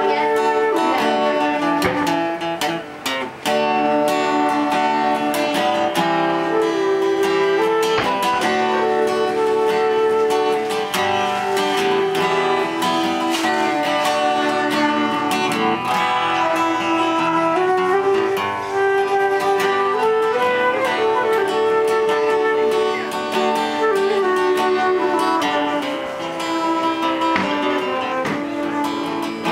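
An acoustic guitar and a transverse flute playing a duet. The guitar is strummed and picked as accompaniment while the flute carries a melody of held notes.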